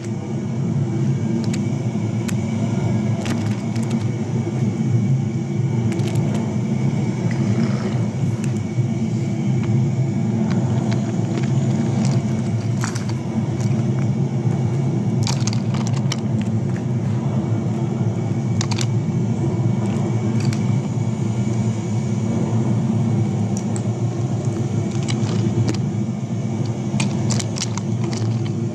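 Toy subway trains rolling along a wooden train track: a steady rumble with scattered sharp clicks.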